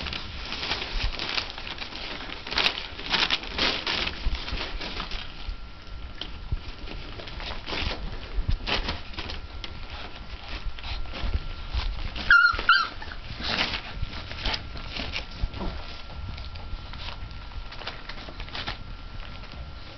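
Mastiff puppies crumpling and tearing newspaper, a crackling rustle that is busiest in the first few seconds, with one short, high puppy yelp about twelve seconds in.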